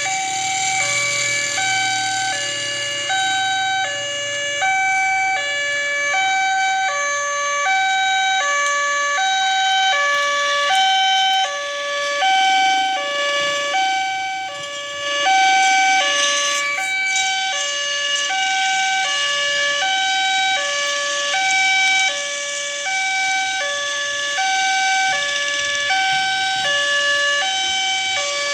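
Railway level-crossing warning siren sounding a two-tone alarm, a higher and a lower tone alternating steadily, about one high-low cycle a second.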